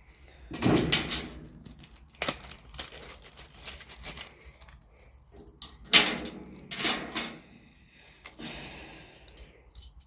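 Small metal lock parts and keys being handled, with jangles, clicks and scrapes. Two louder knocks come about six and seven seconds in.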